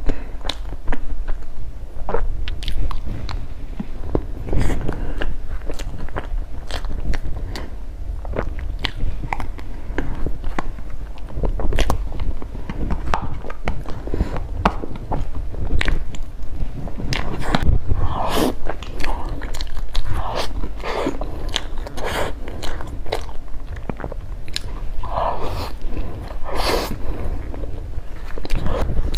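Close-miked mukbang eating: a person biting into and chewing bread, with many sharp mouth clicks and smacks throughout. A few short pitched mouth sounds come in the second half.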